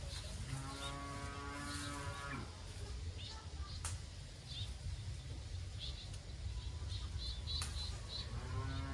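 A long, drawn-out animal call, held about two seconds, with a second one starting near the end, over a steady low rumble and faint high chirps.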